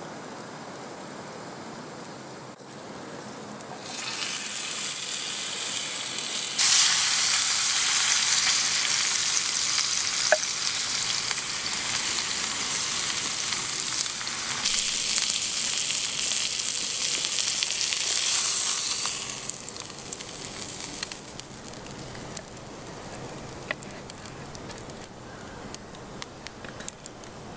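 A piece of meat searing in a hot, oiled iron grill pan over a campfire: a quieter hiss gives way to loud, dense sizzling that starts abruptly about seven seconds in. Several seconds before the end it dies down to a softer sizzle with scattered small pops.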